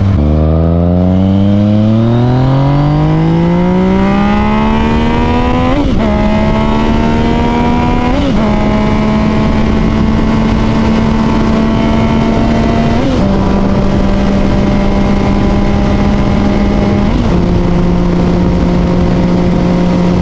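Yamaha FZ-09 inline-three engine under hard acceleration, its revs climbing steeply, with quick upshifts about six and eight seconds in. It then pulls at a nearly steady pitch with two further upshifts later, each dropping the pitch a little, under steady wind rush.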